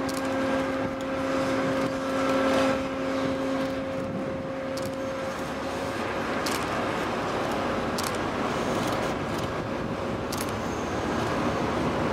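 Steady machinery noise outdoors, with a low droning hum that fades out about five seconds in, and a few faint clicks.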